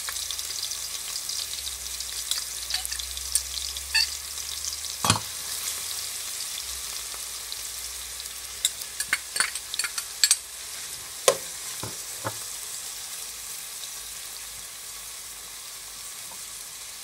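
Chopped onions, garlic, spring onions and peppers sizzling in hot oil in an aluminium pot, a steady hiss that slowly eases. Scattered sharp clinks and knocks against the pot as more vegetables are tipped in and stirred, mostly in the middle.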